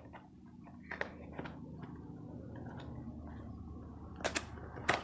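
Fingers picking and pulling at a headphone box's packaging: a steady scratching rustle broken by sharp clicks, one about a second in and two louder ones near the end.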